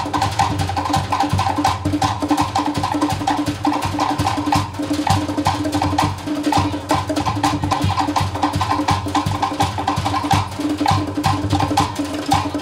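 Cook Islands drum ensemble playing a fast, steady rhythm: rapid strokes on wooden slit-log drums (pate) over a large skin bass drum (pa'u), accompanying a drum dance.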